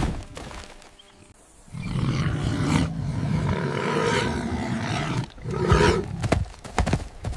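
A large animal's rough, drawn-out growling roar that starts a little under two seconds in and lasts about three and a half seconds, followed by a shorter growl and a few sharp knocks near the end.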